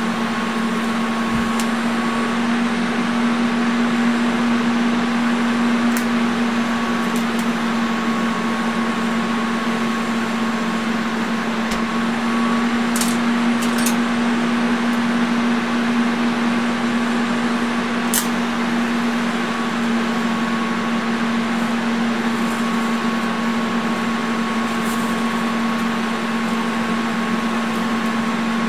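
Steady electrical hum of a Lincoln Square Wave TIG 200 during TIG welding, with a few faint sharp clicks.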